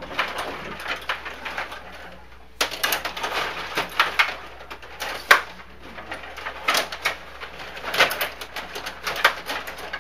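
Sharp, irregular clacks and scrapes of ice hockey play: sticks, puck and skates on the ice.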